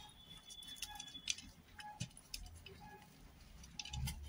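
Faint crackling of crisp fried samosa pastry being broken apart by hand, heard as scattered light clicks.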